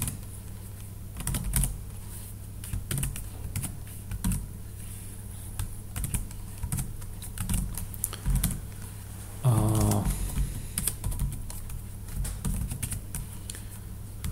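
Computer keyboard typing: irregular clusters of key clicks as terminal commands are entered, over a steady low hum. About nine and a half seconds in there is a brief voice sound.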